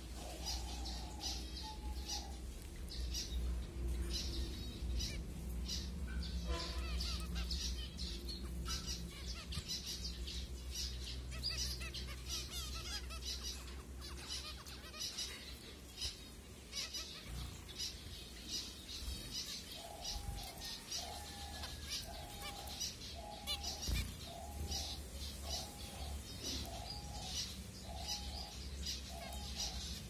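A flock of zebra finches calling constantly with short, high beeping calls, several a second, with wing flutters as birds shift about. In the second half a lower, steady note from another source repeats about once a second.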